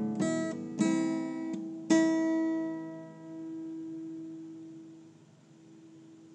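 Acoustic guitar strumming three chords in the first two seconds, the last one left to ring and fade away over about three seconds.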